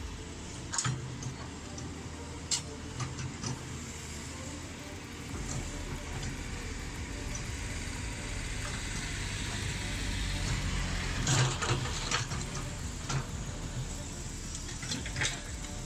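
Hydraulic excavator's diesel engine running steadily as the arm works, with a few sharp knocks now and then, a cluster of them a little past the middle.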